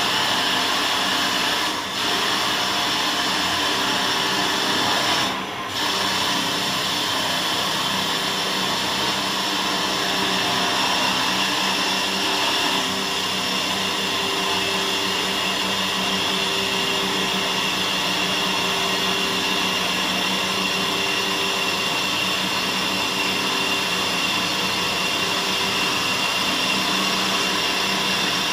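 Three-spindle CNC wood lathe turning three wooden blanks at once, its spindles spinning while the turning blades cut the wood: a steady whirring hiss with a motor hum in it. The sound dips briefly twice in the first few seconds.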